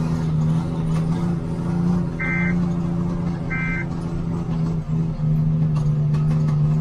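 Vehicle engine running steadily, heard from inside the cab, with two short high beeps a little over a second apart about two seconds in.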